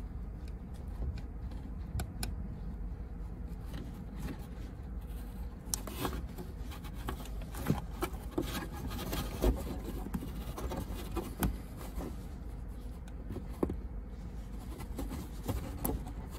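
A flathead screwdriver scraping and prying at a plastic wire-harness holder to squeeze and loosen it, with scattered light clicks and rubbing of plastic.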